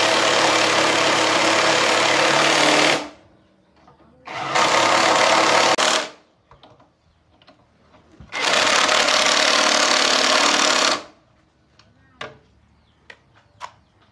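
Power tool run in three bursts, a steady hiss over a motor hum: the first stops about three seconds in, a shorter one comes around the middle, and another runs until about three seconds before the end. Light clicks and taps of handling follow.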